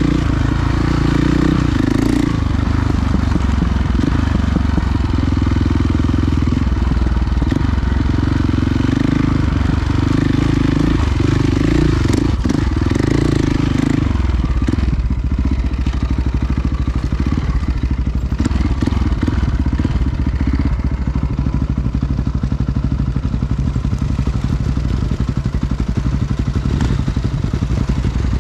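Enduro motorcycle engine running under way on a trail, the revs rising and falling through the first half, then holding steadier from about halfway.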